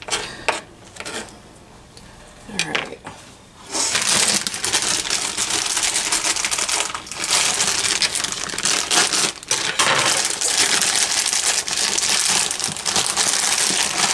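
A few light clicks and knocks, then from about four seconds in a plastic produce bag crinkling continuously as Brussels sprouts are taken out of it.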